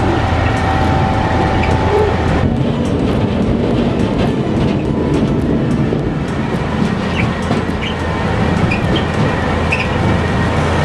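Self-built sugar beet chaser, a converted Agrifac Big Six, unloading sugar beet over its elevator conveyor into a tipping trailer, with steady machinery clatter and engine rumble.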